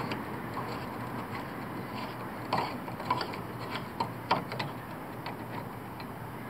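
Clicks and small knocks of a compact oil catch can being unscrewed and handled, bunched in the middle, over a steady low hum.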